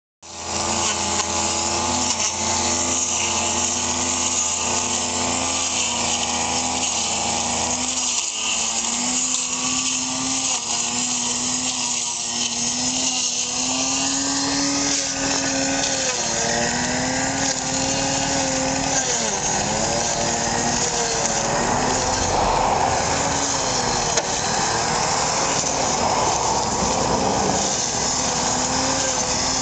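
Engine-driven brush cutter running at high revs, a steady high engine note whose pitch dips and recovers several times as the blade bites into tall grass.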